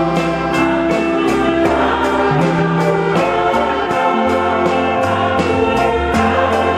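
Gospel music: a choir singing over a band, with bass notes and a steady beat.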